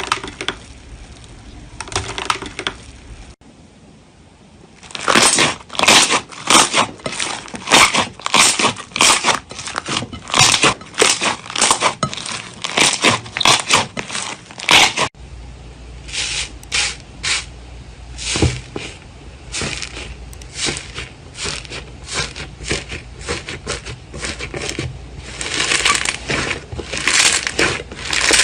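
Slime being squeezed and pressed by hand, giving rapid crackling and popping clicks, several a second. The sound breaks off and starts again abruptly about three seconds in and about halfway through.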